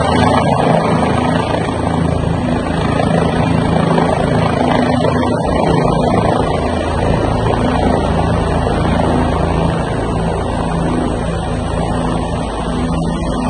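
Military helicopter hovering low overhead: loud, steady rotor beat and turbine engine noise.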